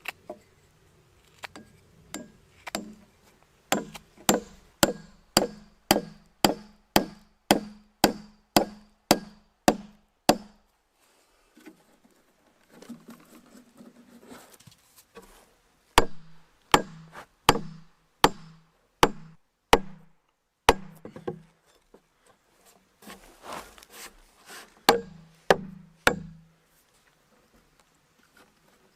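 Wood being struck over and over, sharp knocks about two a second in runs with short pauses between, each knock carrying a dull low thud.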